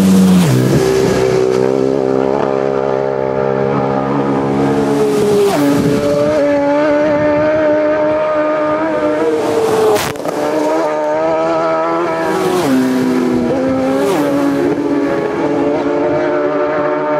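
Road-racing motorcycles passing flat out one after another, about five in all, each engine note dropping sharply in pitch as the bike goes by, with the next bikes still audible between passes. A sharp crack rings out about ten seconds in.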